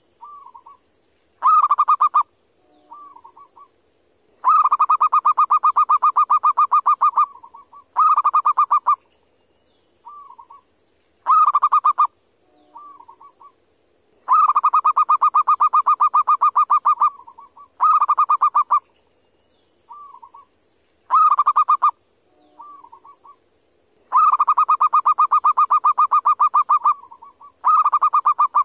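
Local wild zebra dove (perkutut lokal) calling: phrases of rapid cooing notes, the long ones lasting about three seconds and returning roughly every ten seconds, with shorter phrases and soft single notes in between. A steady high hiss runs underneath.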